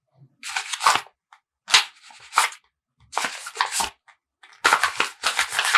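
Paper being handled and crinkled: four short bursts of crisp rustling with sharp clicks, separated by brief pauses, the last and longest near the end.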